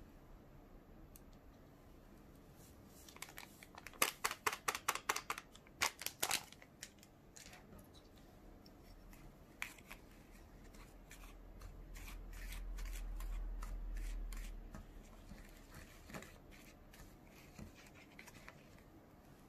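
Foil powder packet of a DIY candy kit crinkling in a quick run of about a dozen sharp rustles. After that, light clicks and scrapes of a small plastic spoon working powder in a plastic tray.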